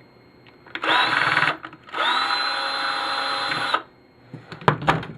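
Cordless drill run in two bursts, a short one and then a longer one of about two seconds, its motor whine rising as it spins up, used to remove a small transistor from a TV's circuit board. A few sharp clacks follow near the end.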